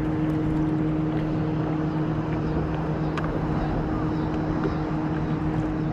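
Boat motor running with a steady, even hum, plus a few faint ticks.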